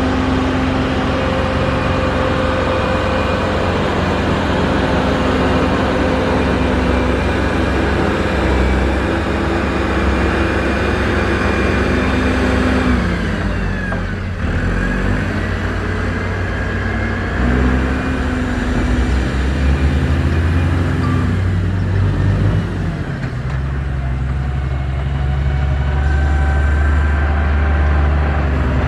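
Heavy diesel construction machine engine running under steady load. About halfway through, its pitch dips and then climbs back up.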